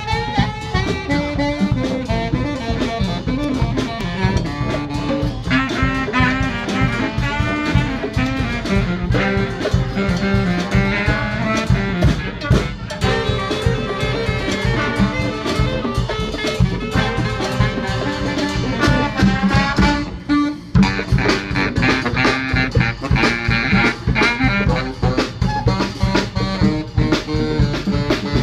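Street brass band playing chaotic, jazz-like music: saxophone and other horns over busy drumming, with a short drop in the playing about twenty seconds in.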